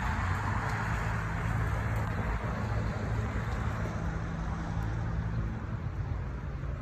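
Steady city traffic noise with a low, even engine hum from a nearby vehicle.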